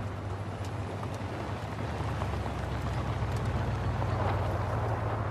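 Full-size Chevrolet SUVs driving on a dirt track: a steady low engine rumble with tyre noise.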